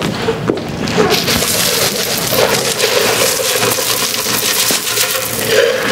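Liquid poured from a can splashing and spattering onto a floor, a dense crackling hiss that starts about a second in and stops near the end.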